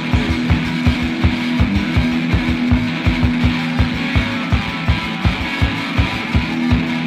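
Rock music with no singing: a quick, steady, driving low beat under a held note and guitar-band backing.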